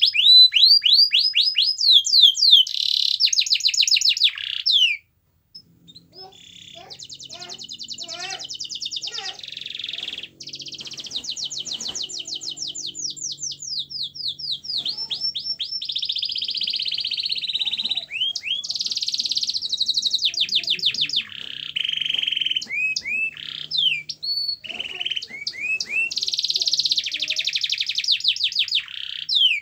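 Yellow domestic canary singing a long, rapid song of high trills and rolls, with series of quick sweeping notes. The song cuts off suddenly about five seconds in, then starts again a moment later and runs on.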